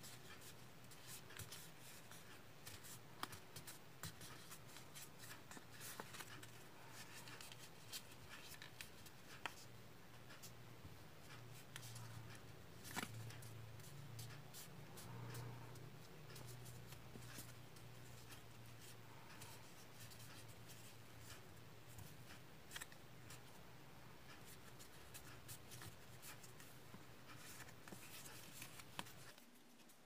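Faint rustling and crinkling of a sheet of origami paper being folded and creased by hand, with scattered small crackles and a few sharper ticks. A low steady hum runs underneath and stops just before the end.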